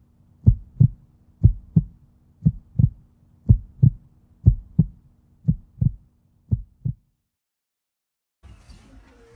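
Heartbeat sound effect: a steady lub-dub of paired low thumps, about one pair a second, over a faint steady hum. It stops about seven seconds in, and faint background noise comes in near the end.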